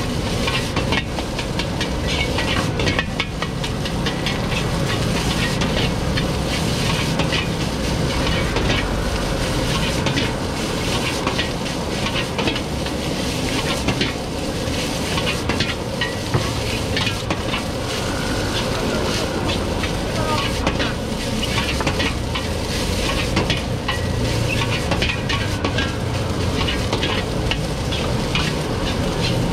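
Fried rice sizzling in a hot wok while a metal ladle stirs and tosses it, scraping and clacking against the wok many times over a steady hiss.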